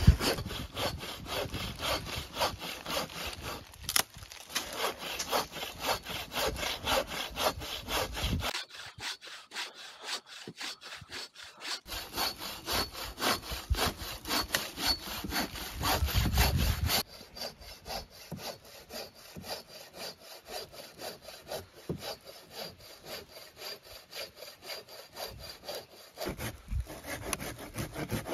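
Hand saw cutting through a dry fallen tree trunk in steady, rhythmic back-and-forth strokes, growing fainter in the second half.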